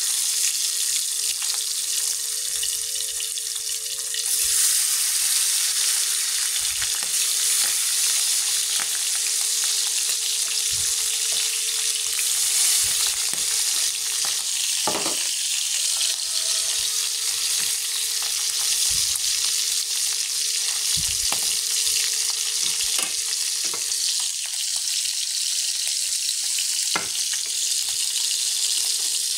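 Small chili-salt-coated catfish frying in hot oil in a pan: a steady sizzling hiss that grows louder about four seconds in, with a few light clicks.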